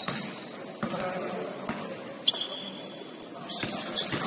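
Basketball bouncing on the court, about one bounce a second, with a louder knock a couple of seconds in and sneakers squeaking on the floor.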